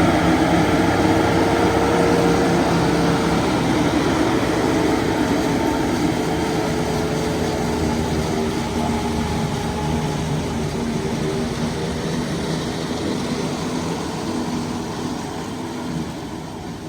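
Kubota M7-172 tractor running steadily under load, pulling a New Holland FP230 forage harvester that is chopping corn: a steady engine drone mixed with machinery noise, gradually fading out.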